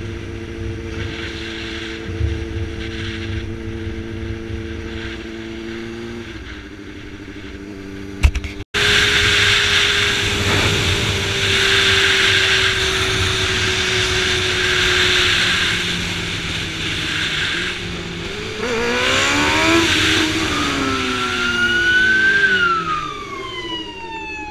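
Motorcycle engine running under way, heard from the rider's camera, with a sudden break about nine seconds in. Later the engine revs rise and fall several times in quick succession.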